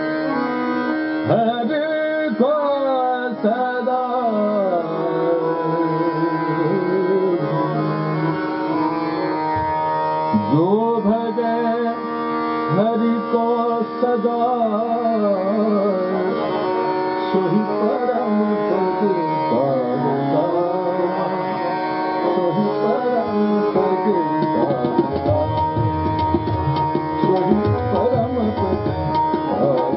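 Male Hindustani classical voice singing a bhajan in long, gliding ornamented phrases over a steady tanpura drone, with tabla accompaniment that grows busier and deeper in the last several seconds.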